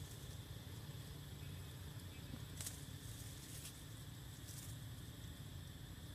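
Quiet outdoor ambience: a steady low rumble under a thin, steady insect drone, with a few faint brief rustles from monkeys moving in the tree branches, between about two and a half and four and a half seconds in.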